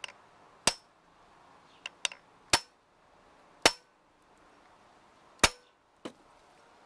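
A metal punch is tapped into the plastic front panel of a CB radio to make a small dimple, so the drill won't wander. There are four sharp, ringing taps spaced about a second apart, with a few lighter taps between them.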